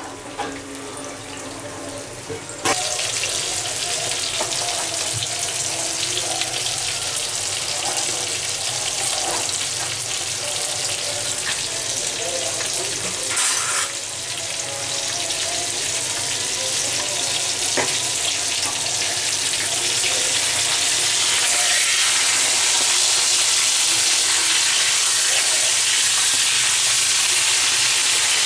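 Fish pieces frying in hot oil in a pan: a steady, dense sizzle. It steps up about three seconds in and grows a little louder in the last third.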